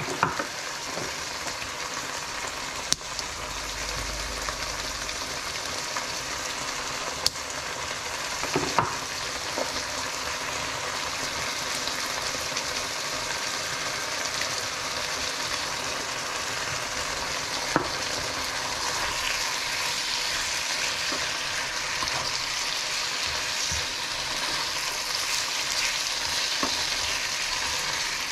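Chicken hearts and diced vegetables sizzling steadily in a frying pan while being stirred, with a few sharp clicks and knocks scattered through.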